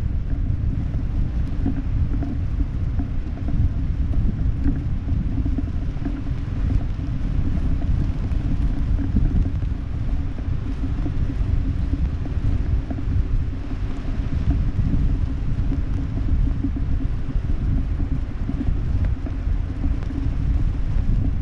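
Wind buffeting the camera microphone under an open parachute canopy: a steady low rumble of rushing air.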